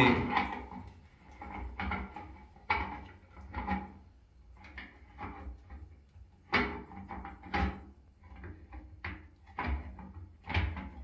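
Irregular small clicks and knocks as a Sparkpod rainfall shower head is turned by hand onto the metal shower arm's threads.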